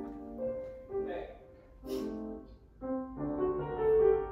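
Background piano music with held notes that change every half second or so, and a couple of faint sharp clicks in the first half.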